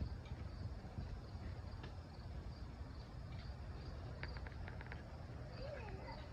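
Outdoor ambience: a steady low rumble with faint high chirping, and a short run of sharp clicks about four seconds in.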